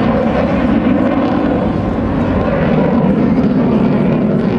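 Loud, steady jet noise from an F/A-18C Hornet's two GE F404 engines as the fighter flies past overhead.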